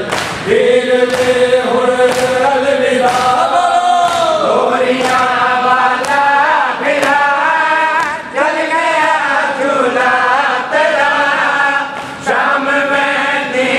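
Men's voices chanting a Muharram noha (lament) together, with sharp hand strikes of chest-beating matam keeping time about once a second.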